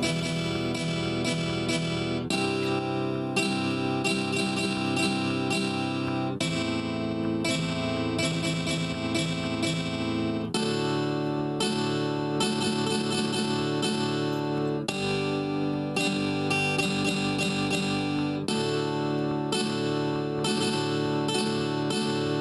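Background music: acoustic guitar strumming and plucking, with chord changes every couple of seconds.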